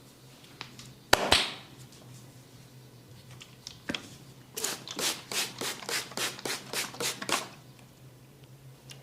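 Percussive massage strikes on the head and neck: a loud double smack about a second in, a single tap a few seconds later, then a quick run of about a dozen strikes, around four a second.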